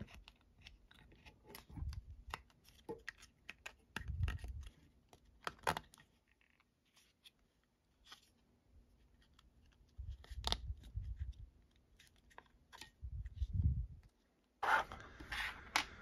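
Sheet-metal contact terminals being pushed and slid into the slots of a 3D-printed plastic adapter housing: scattered scrapes and small clicks of metal on plastic, with a few low bumps from the housing being handled.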